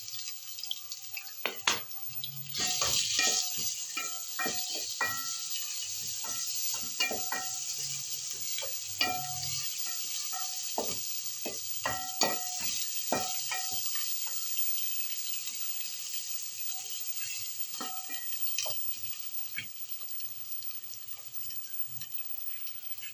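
Onions frying in hot oil in an aluminium pot, sizzling steadily, while a wooden spoon stirs and knocks against the pot so the metal rings briefly. The sizzle grows louder about two and a half seconds in as garlic and ginger go into the oil. The knocks are quick and frequent at first and thin out after the middle.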